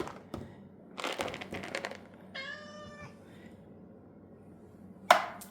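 A domestic cat meows once, a short even-pitched call about two and a half seconds in, after a brief rustle. Near the end comes a single sharp clack, the loudest sound here.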